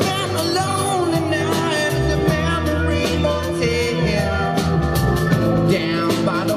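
Live rock band playing: acoustic and electric guitars, bass and drums, with singing over them.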